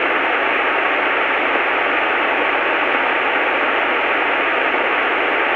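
T-34A Mentor cockpit noise on the takeoff roll, heard through the aircraft intercom as a steady rushing hiss with a faint steady whine, the engine itself not coming through as a distinct note.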